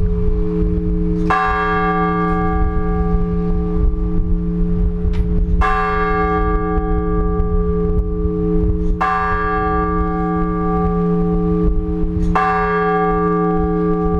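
A large Orthodox church bell is struck by its clapper four times, about three and a half seconds apart. Each stroke rings out bright over a deep hum that carries on between the strokes. These are the measured single-bell strokes of the blagovest, calling the faithful to the all-night vigil.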